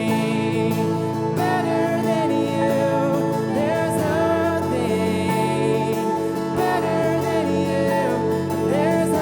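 Worship music: a singing voice over acoustic guitar and sustained accompaniment, at a steady level.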